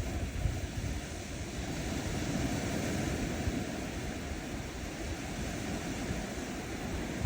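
Ocean surf on a sandy beach: a steady wash of waves with a low rumble, swelling gently about two seconds in and easing off again.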